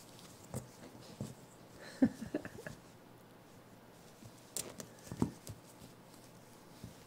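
A baby capuchin monkey's hands and feet patting and thumping on a blanket and mirror as she scampers and grabs at her reflection: irregular soft taps, with the loudest cluster about two seconds in and another around five seconds.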